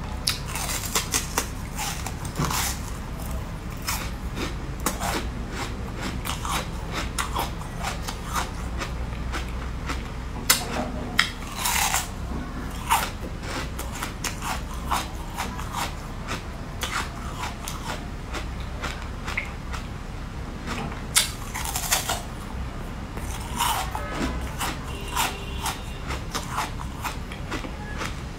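Close-up biting and crunching of a piece of sweet coloured ice, with chewing in between: a dense run of sharp crackles, a few of them louder.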